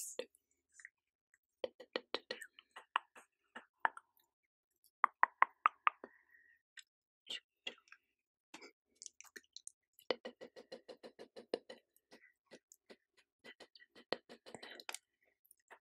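ASMR mouth sounds: quick runs of clicks and smacks made with the lips and tongue, several a second, with short pauses between runs; the loudest run comes about five seconds in.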